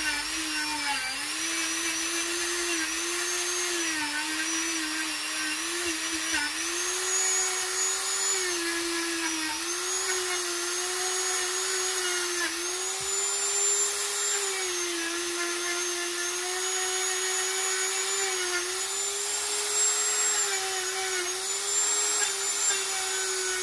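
Handheld rotary tool running at high speed, its bit working the bolt holes of an aluminium motorcycle engine side cover. A steady high whine that sags in pitch for a moment every few seconds.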